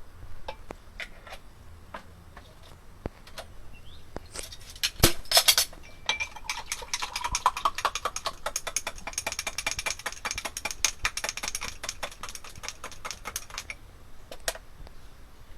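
A metal spoon stirring rapidly in a glass while making lemon soda, clinking several times a second with a faint ringing from the glass. Scattered clinks come first, then a louder rush of sound about five seconds in, and the stirring stops near the end.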